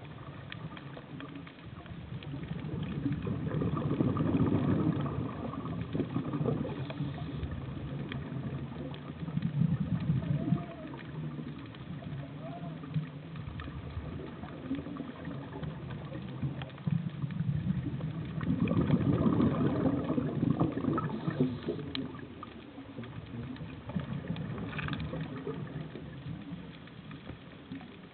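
Scuba divers' regulator breathing underwater: three long swells of low rumbling bubble noise, the exhalations, rising and fading over a steady underwater hiss.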